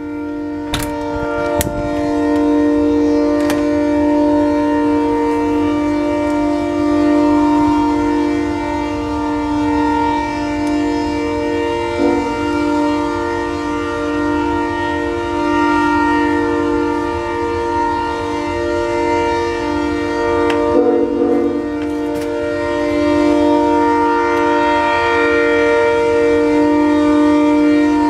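CPR locomotive air horn blowing one long continuous blast, a steady multi-note chord held without a break, wavering briefly twice, near the middle and about three quarters through.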